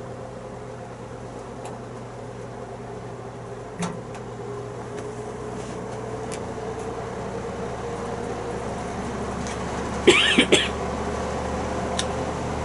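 Vintage GE box fan's motor running with a steady hum that slowly grows louder as the blade picks up speed, with a click about four seconds in. A short, loud human vocal burst a little after ten seconds, followed by "excuse me".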